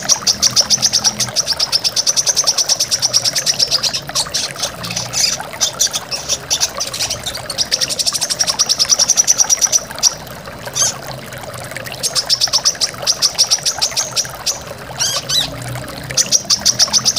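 Brown-throated sunbird singing fast, high chattering trills of rapidly repeated notes, in bursts of a few seconds each, over the steady rush of running water.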